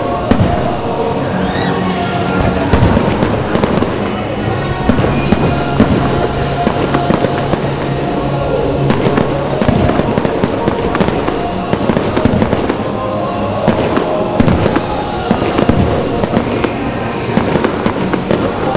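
Fireworks display: aerial shells bursting in many irregular bangs and crackles, with music playing underneath.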